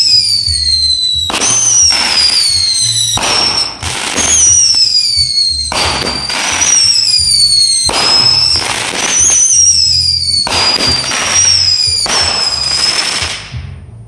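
Consumer firework firing a quick series of whistling shots, about one every second and a half. Each shot is a hiss with a high whistle that falls in pitch, and the series stops shortly before the end.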